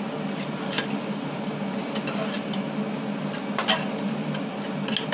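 A metal ladle stirring vegetables frying in oil in a metal pot: a steady sizzle, with sharp scrapes and taps of the ladle against the pot about four times. A steady low hum runs underneath.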